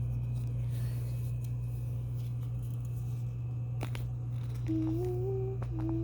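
Steady low electrical hum with a couple of sharp clicks about four seconds in, then near the end a child humming two short notes that each rise slightly in pitch.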